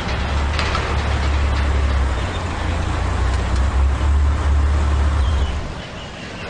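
Black Range Rover SUV driving slowly past, a steady low engine rumble with tyre noise that dies away about six seconds in.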